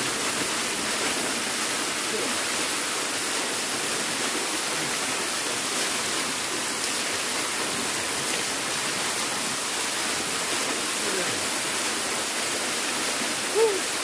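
Small waterfall pouring steadily down a rock face and splashing into a shallow pool, a constant rushing of water. There is a brief, louder sound near the end.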